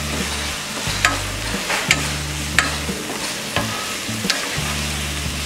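Grated vegetables frying in an oiled pan with a steady sizzle as a wooden spatula stirs them. The spatula scrapes and knocks against the pan several times in short, sharp strokes.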